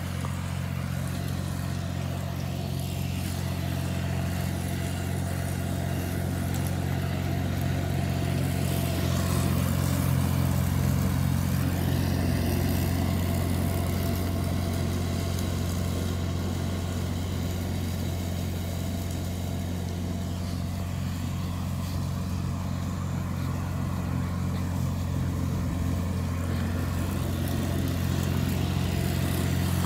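Compact tractor engine running steadily while mowing grass, a continuous low drone that grows a little louder about ten seconds in and then eases.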